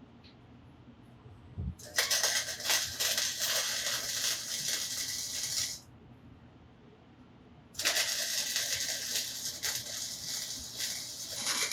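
MIG welder laying two welds, each a steady crackling sizzle of a few seconds, the second starting about two seconds after the first stops.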